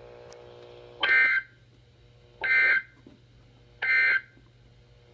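Emergency Alert System end-of-message signal on weather radio: three short, identical bursts of buzzing SAME digital data tones, about a second and a half apart, marking the close of the warning broadcast. A faint steady hum lies beneath.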